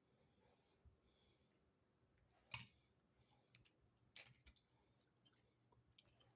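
Near silence with faint, scattered small clicks and handling sounds; the loudest click comes about two and a half seconds in, another about four seconds in.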